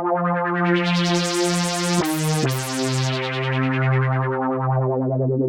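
Yamaha reface CS virtual-analog synthesizer holding low notes while its filter sweeps open to a bright, buzzy tone and then closes again. The pitch steps down about two seconds in.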